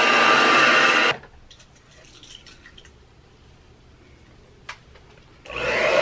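Black Diamond Professional hair dryer blowing steadily, then switched off abruptly about a second in. A few faint handling rustles and a single sharp click follow, then the dryer is switched back on near the end and rises to full blow.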